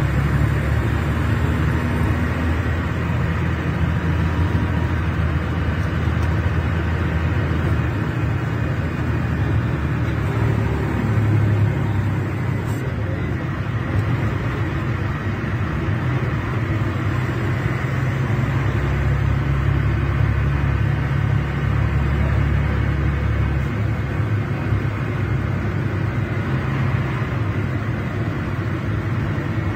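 Scania K380 coach's DC12 06 in-line six-cylinder diesel engine (380 hp) running, a steady low drone throughout.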